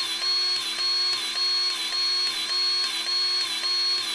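Battery-powered grease gun motor whining steadily as it pumps grease into a skid steer's U-joint, its pitch dipping briefly about every 0.6 s with each pump stroke.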